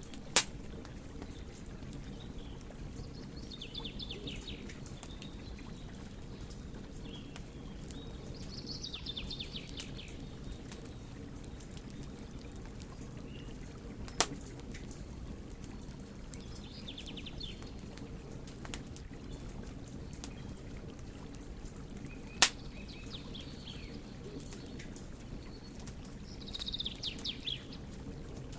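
Wood fire burning with a steady low rush and scattered faint crackles, broken by three loud sharp pops: one right at the start, one about halfway and one about three-quarters in. Short bird twitters come and go in the background.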